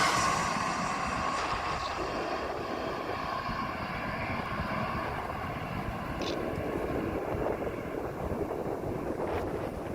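Jet airliner's engines fading as it moves away: a falling whine dies out in the first second, leaving a steady rumble with wind on the microphone.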